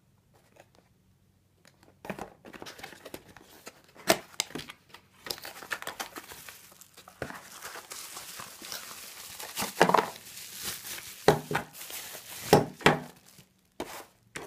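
Plastic packaging crinkling and rustling while the contents of a cardboard box are handled, starting about two seconds in, with several sharp knocks and clacks mixed in.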